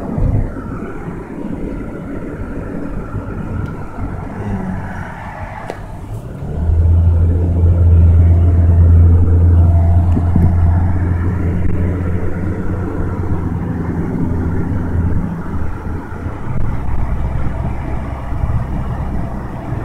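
A car travelling at highway speed, heard from inside the cabin: steady road and engine rumble, with a loud low hum that swells in about six seconds in and fades after about fifteen seconds.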